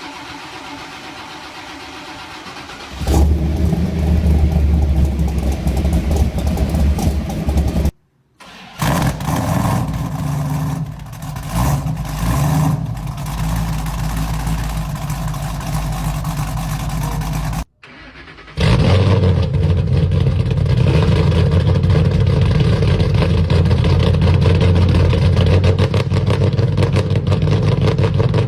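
Ford Mustang engines in a cold start: about three seconds in one catches with a sudden jump in loudness and runs steadily, and later clips, joined by abrupt cuts, show the engines running loudly with some rises and falls in pitch.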